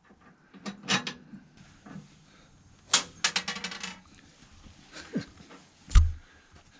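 A wooden hopper board being handled and fitted against the steel frame of an antique Turner hay press. Scattered clicks and knocks, then a quick rattle of clicks about three seconds in, and a dull thump near the end, the loudest sound.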